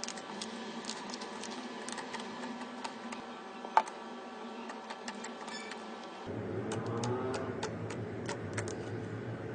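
Slime being squeezed and worked by hand, giving irregular sticky clicks and small pops, with one sharper pop about four seconds in. About six seconds in the sound changes to a fuller, lower squishing.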